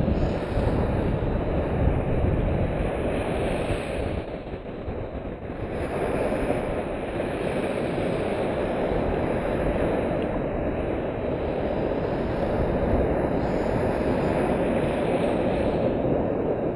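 Small waves breaking and surf washing and fizzing right around the camera at the water's edge, a steady rushing noise that eases briefly about four seconds in before the next wash.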